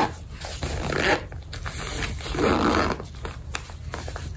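Zipper on a packed velvet makeup pouch being pulled shut, in two rasping strokes: a short one about a second in and a longer one halfway through.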